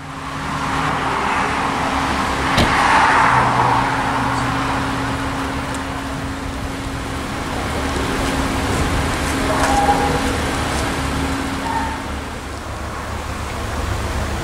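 Car engine running steadily at a constant pitch, over traffic noise, with one sharp click about two and a half seconds in.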